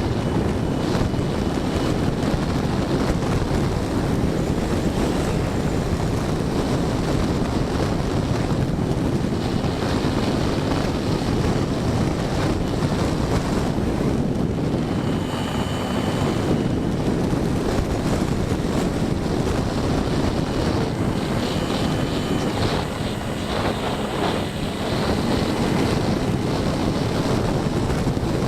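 Wind rushing over the microphone of an action camera mounted under the wing of an E-flite Apprentice STS RC trainer plane in flight, with the plane's electric motor and propeller running. The level dips briefly a little past two-thirds of the way through.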